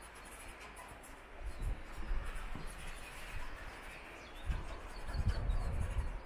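Outdoor ambience: a steady rushing hiss with low rumbling gusts on the microphone that grow stronger about two-thirds of the way in, and a few faint high bird chirps.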